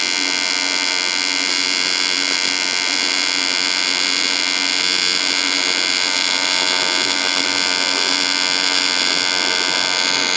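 AC TIG welding arc buzzing steadily while welding up cracks in a cast aluminum motorcycle oil pan.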